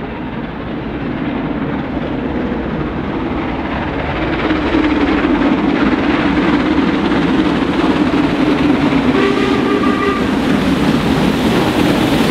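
Mainline steam train approaching, its noise growing louder over the first few seconds and then running on at full volume. A short pitched tone sounds briefly about nine seconds in.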